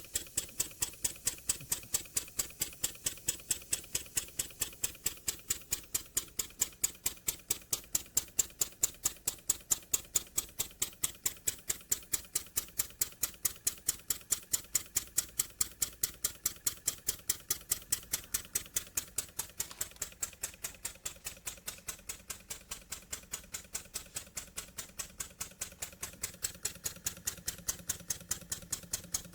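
Jowitt Major poppet valve model steam engine running steadily on compressed air, making a fast, even beat of sharp exhaust and valve clicks. It runs smoothly with its cam timing freshly set and well oiled.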